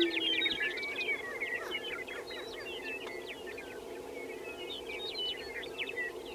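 Greater prairie chickens on a lek: a steady low booming chorus, with one nearer boom ending just after the start, and a dense scatter of short, high cackling and whooping calls over it.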